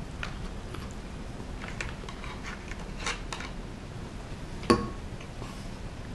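Eating sounds: small clicks of a wooden fork and spoon against a plastic takeout container and a rice bowl, with one sharp, ringing knock of a utensil against a bowl about three-quarters of the way through.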